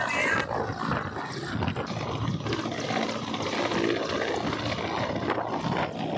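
Military helicopter running on the ground with its rotor turning: a loud, steady roar of rotor and turbine noise, with the rotor downwash buffeting the microphone.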